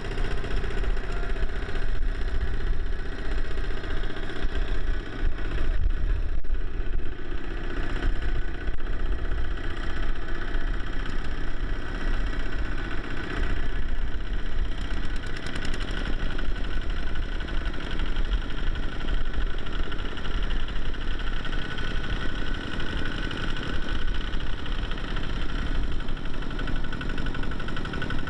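Kubota walking tractor's single-cylinder diesel engine running steadily, working to pull a trailer through deep mud and water.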